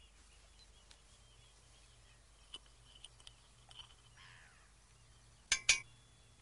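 Petrol-charged firework mortar fired by a spark plug: two sharp bangs in quick succession near the end as the rapidly burning petrol vapour launches a can, after a few faint clicks.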